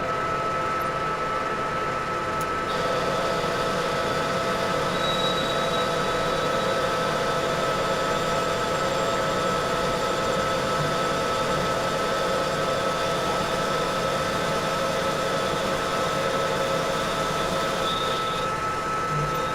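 Metal lathe running with a steady whine. About three seconds in the sound grows fuller and a higher tone joins.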